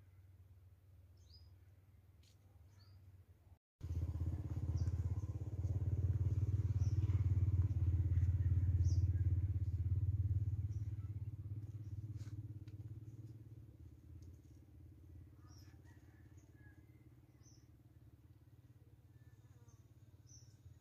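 A passing motor vehicle's engine: a low rumble that starts suddenly about four seconds in, swells, then fades away over about ten seconds. Small birds chirp throughout.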